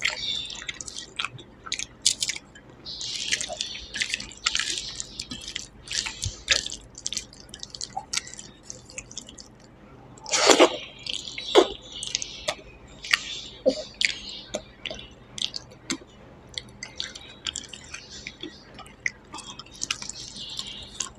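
Wet chewing and lip-smacking of a person eating rice and vegetable curry by hand, close to the microphone. There are many short, moist clicks and squelches, with the loudest cluster about halfway through.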